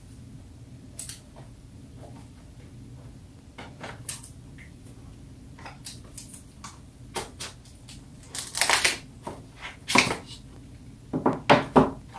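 Hands opening a smartphone's retail box and packaging: scattered clicks, taps and rustles of cardboard and plastic. A longer rustle comes about two-thirds through, followed by a sharp knock, and a quick run of clicks near the end.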